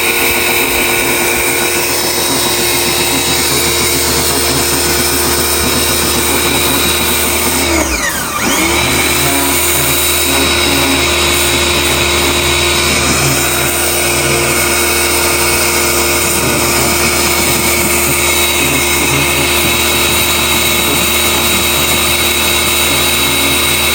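Pressure washer running steadily, its motor hum under the hiss of the spray. About eight seconds in, the motor's pitch dips briefly and then recovers.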